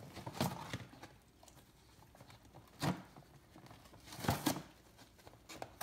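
Great Dane chewing and tearing at a cardboard dog-treat box: scattered short crinkles and rips of cardboard, the loudest pair about four seconds in.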